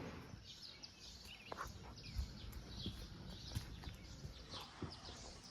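Faint outdoor ambience: small birds chirping now and then, with a few light knocks.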